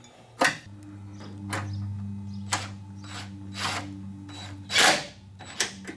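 Cordless drill/driver run in short bursts to tighten the bolts on the radiator's upper mounting brackets, with the longest and loudest burst near the end. A steady low hum runs underneath.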